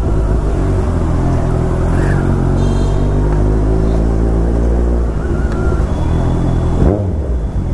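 Kawasaki Ninja 1000SX's inline four-cylinder engine running at low speed in slow traffic, with a quick throttle blip that rises sharply near the end.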